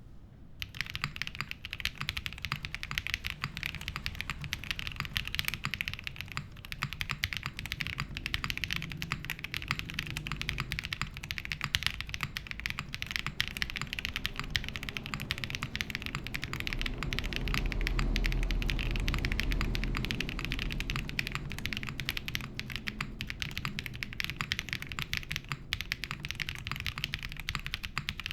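Continuous typing on a Matrix Lab IM+ Meta top-mount mechanical keyboard with lubed KTT Darling switches in an aluminium plate and PBT keycaps: a dense run of keystroke clacks starting about half a second in. A low rumble sits under the typing for a few seconds past the middle.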